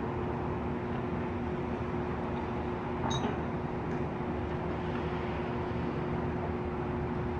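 Construction-site machinery engine running steadily with a constant drone. A single short metallic clank rings out about three seconds in.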